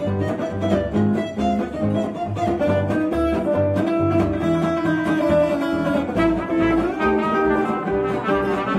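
Live gypsy jazz band: acoustic guitars strumming a steady chugging rhythm while bowed strings play long held melody notes over it.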